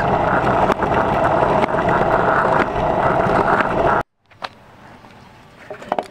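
Stunt scooter wheels rolling fast over rough asphalt: a loud, steady rolling rumble with small ticks from the road surface. About four seconds in it cuts off abruptly, leaving a quieter stretch with a few sharp clicks and knocks.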